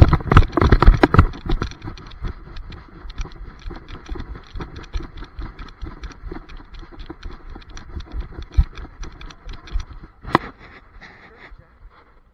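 Camera strapped to a running dog, jostling with each stride: a rapid patter of paw footfalls and the microphone rubbing against fur. The knocking is loudest in the first second and a half, with one sharper knock near the end.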